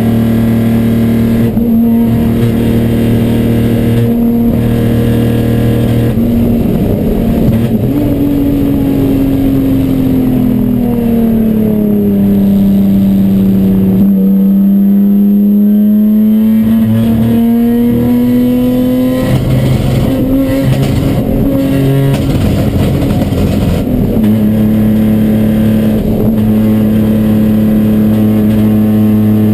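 Ford Probe race car's engine running under a misfire, its note stuttering and dropping out in short gaps. Engine speed falls about eight seconds in and climbs back again several seconds later.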